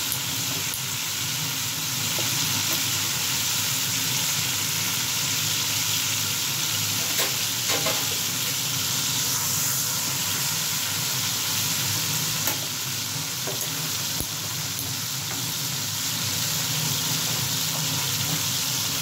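Chopped tomatoes and green chillies sizzling in hot oil in a metal pan, with a steady frying hiss. A wooden spatula stirs them, knocking or scraping against the pan a few times.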